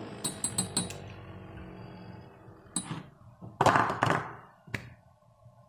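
Burst Beyblade Burst top's plastic parts clattering after the top bursts apart: a quick run of small clicks and knocks in the first second, then a few separate thunks and taps as pieces land and come to rest.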